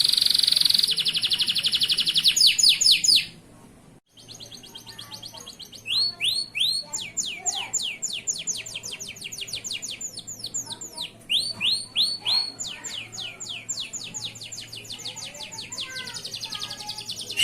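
Male canary singing: a loud, very fast trill for about three seconds, a brief break, then a long varied song of rapid repeated chirps and quick falling whistles.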